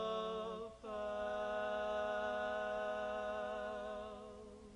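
Barbershop quartet singing a cappella in close four-part harmony: a held chord breaks off just under a second in, then a new chord is sustained and fades away near the end.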